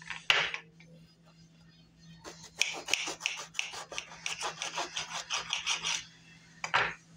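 Serrated knife sawing through a crusty bread roll: a run of rasping back-and-forth strokes, about four a second, for nearly four seconds, with a brief crackle of crust before it and another near the end.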